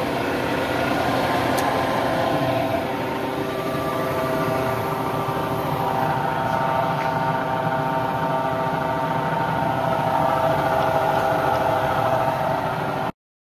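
Kindt-Collins Master 30-inch disc sander running, its motor and large abrasive disc giving a steady hum made of several held tones.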